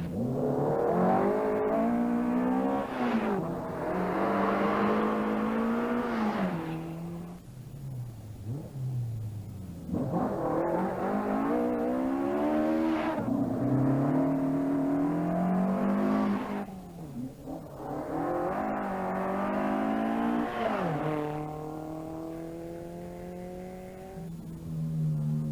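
Rally car engines driven hard on a stage, revving up and dropping with each gear change in three loud runs. Between the runs they fall quiet, and near the end there is a steadier, slowly falling engine note.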